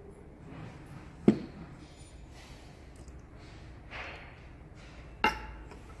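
Two sharp clinks about four seconds apart as glass perfume bottles are handled and set down; the second rings briefly. A soft rustle comes between them.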